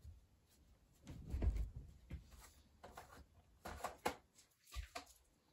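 Rummaging: irregular rustling and knocking as things are shifted about in a search, with a heavier low thump about a second and a half in.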